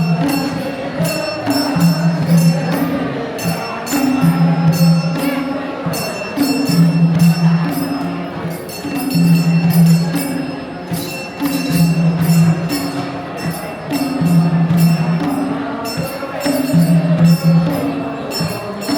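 Traditional Gurung dance music: a low two-note figure repeats about every two seconds under fast, steady jingling percussion.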